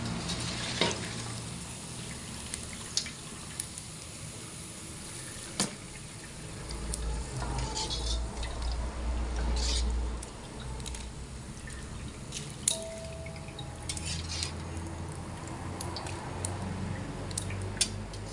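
Household kitchen work: scattered light clinks and knocks of utensils and dishes, with water dripping and splashing.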